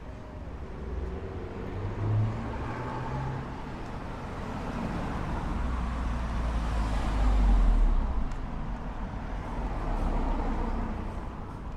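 Cars driving past on a street, engine and tyre noise swelling and fading, loudest as one passes close about two-thirds of the way through, with another following.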